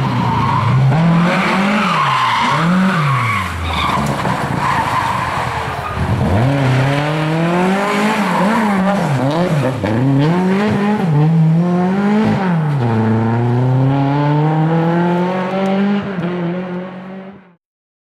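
Rally car engines revving hard through corners, pitch climbing and dropping again and again with gear changes and throttle lifts, over the noise of tyres on a loose, muddy surface; in the second half it is a classic Lada saloon sliding through a corner. The sound cuts off suddenly near the end.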